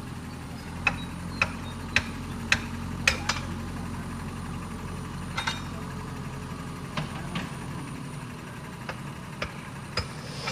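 Heavy diesel engine running steadily at low revs. Over it come sharp short knocks, about two a second for the first few seconds, then fewer and fainter ones.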